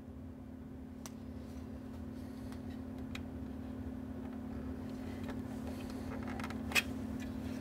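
Steady low hum with rumble beneath, gradually getting louder, with a few light clicks and one sharper click near the end.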